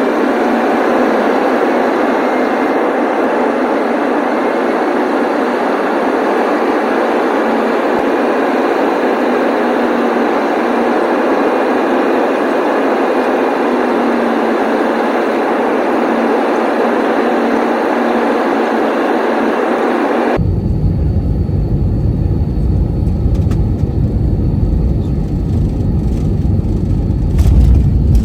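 Loud, steady roar of an Airbus A321 airliner heard from inside the cabin. About two-thirds of the way through it switches abruptly to a deeper rumble with much less hiss.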